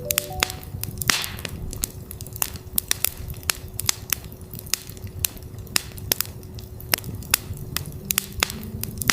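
Campfire crackling with frequent sharp pops and snaps over a low rumble, with a steady 369 Hz tone held underneath. A louder hissing flare comes about a second in and again near the end.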